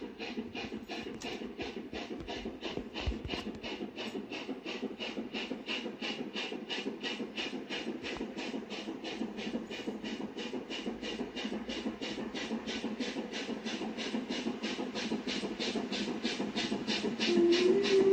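Approaching steam locomotive: a steady beat of exhaust chuffs, about three a second, over a low rumble, slowly growing louder. About a second before the end its steam whistle comes in, a steady note that steps up slightly in pitch and is the loudest sound.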